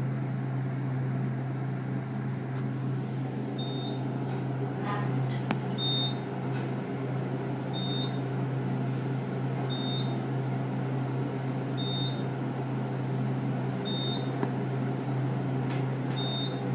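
A steady low electrical hum with a short, high electronic beep repeating about every two seconds, starting about four seconds in.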